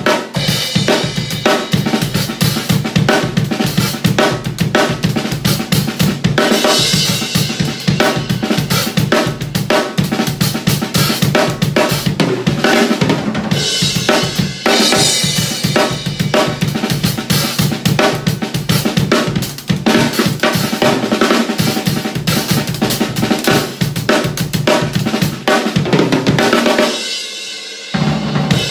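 Acoustic drum kit played solo with no backing music: a continuous groove on bass drum, snare and hi-hat, with cymbal crashes ringing out a few times. Near the end it drops quieter for about a second, with no bass drum, before the playing picks up again.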